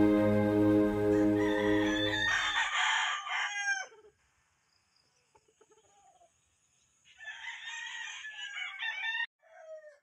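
Background music that stops about three seconds in, overlapped by a rooster crowing, followed by a second, longer stretch of rooster crowing and calling about seven seconds in, and one short call at the very end.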